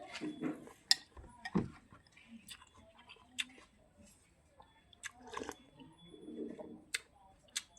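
Close-up eating sounds: a person chewing and slurping rice noodles and pork, with wet lip smacks and sharp mouth clicks at irregular intervals.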